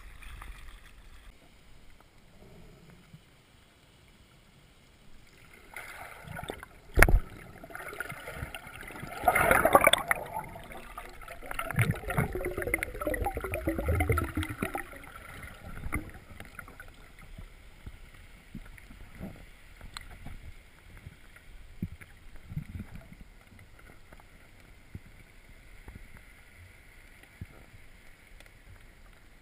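A free-diver's head-mounted camera going under the sea surface: a sharp knock about seven seconds in, then several seconds of loud water splashing and bubbling, then muffled underwater quiet with faint scattered clicks.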